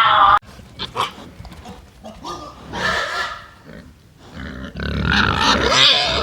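Animal calls: a loud pitched cry cut off about half a second in, then several short calls with wavering pitch, the longest and loudest near the end.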